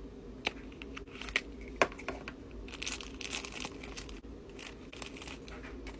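A miniature cardboard toy box being opened, with a few sharp clicks and snaps in the first two seconds, then a thin purple plastic wrapper crinkling and tearing as it is pulled open.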